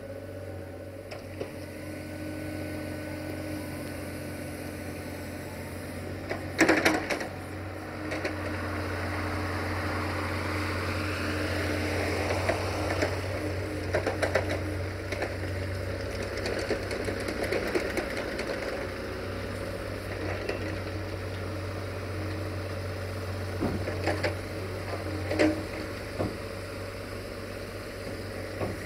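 Caterpillar 302.5C mini excavator's diesel engine running steadily while it digs sand with its bucket, the engine and hydraulics humming throughout. A loud knock comes about seven seconds in, with several lighter knocks later as the bucket and arm work.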